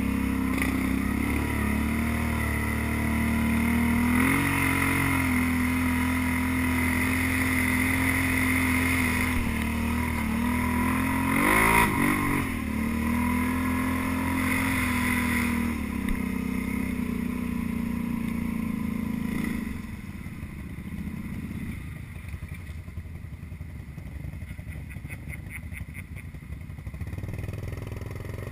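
ATV engine running under throttle on a rough trail, swelling briefly about 4 seconds in and revving up to its loudest near the middle. It drops to a much quieter, rougher sound about two-thirds of the way through.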